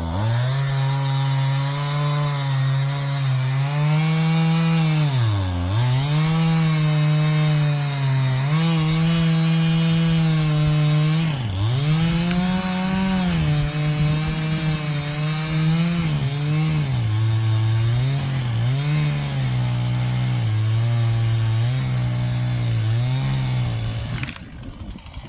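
Stihl two-stroke chainsaw running at high revs while cutting downed trees. Its pitch sags and recovers as the chain bogs in the wood, with deep dips about five and eleven seconds in. It stops near the end.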